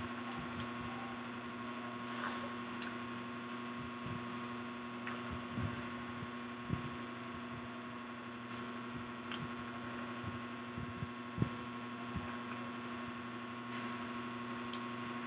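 Steady electrical hum, with scattered soft clicks and low thumps of chewing and handling fried food.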